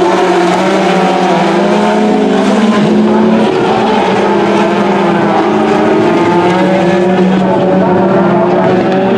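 Several rallycross Supercars racing, their turbocharged engines held at high revs, with the pitch stepping down and back up a few times at gear changes.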